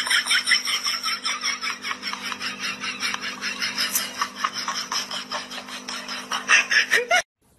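A person laughing in a long, even run of quick bursts, about five a second, louder at first and again near the end, over a steady low hum; it cuts off suddenly.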